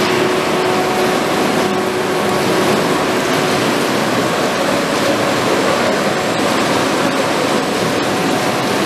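Peruza sprat-processing machinery (conveyors and grading line) running: a loud, steady mechanical rush with a few faint steady hums under it.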